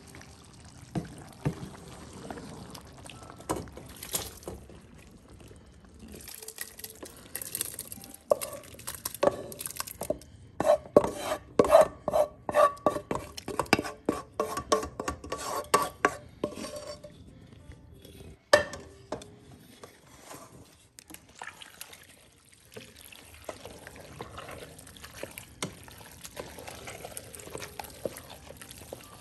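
A wooden spatula stirring and scraping a thick tomato and ground-beef sauce, first in a nonstick skillet, then scraped and knocked from the skillet into a stainless steel pot, whose metal rings under a dense run of knocks in the middle. One sharp knock follows, then softer stirring of the sauce into macaroni in the pot.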